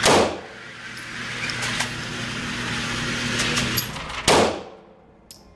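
Two 9mm pistol shots, one at the very start and one about four seconds in, each with a short echo. A steady low hum carries on between them.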